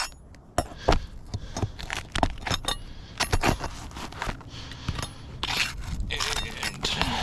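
Steel flat bar prying roofing nails out from under asphalt shingles: sharp metal clicks and knocks, with a longer scrape against the shingles about three-quarters of the way in.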